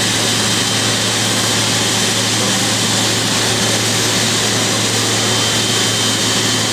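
A twin-engine widebody jet airliner's turbofan engines running at taxi power as it moves past. The sound is a steady loud rush with a thin high whine held on one note.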